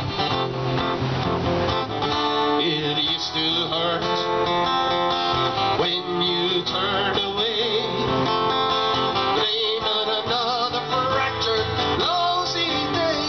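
Acoustic guitar strummed through an instrumental break of the song, with a wavering melody line over the chords in the middle and later part.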